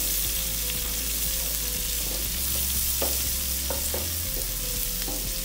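Minced garlic sizzling in foaming melted butter in a pan while a wooden spatula stirs it, with a few light knocks of the spatula against the pan.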